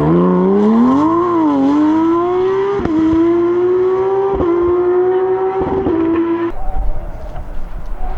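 Porsche 911 GT3 Cup flat-six racing engine running at high revs under acceleration, with a dip in revs and then three quick upshifts. About six and a half seconds in, the engine note cuts off abruptly and a lower, rougher engine noise takes over.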